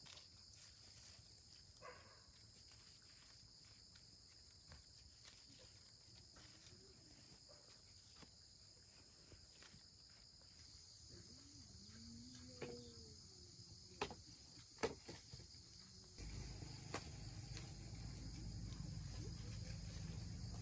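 Faint, steady, high-pitched insect chorus. A few sharp clicks come in the second half, and a low rumble starts about three-quarters of the way through.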